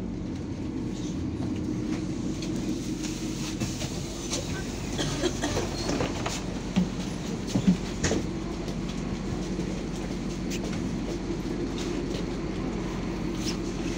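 Interior noise of a MAZ 203 city bus: a steady engine drone with rattling and clicking from the body and fittings, and two sharper knocks about halfway through.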